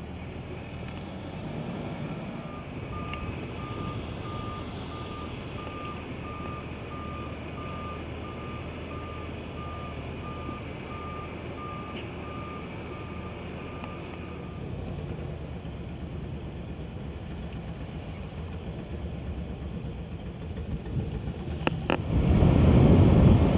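Truck backup alarm beeping at an even pace, about one and a half beeps a second, over the steady low running of a heavy diesel truck; the beeping stops about two-thirds of the way through. Near the end, wind buffets the microphone loudly.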